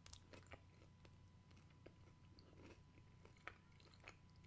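Faint chewing of a mouthful of pizza: small scattered wet mouth clicks over a steady low hum.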